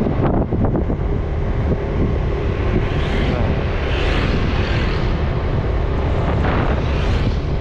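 Steady wind buffeting on the microphone over the low rumble of a moving motorbike and its tyres on the road.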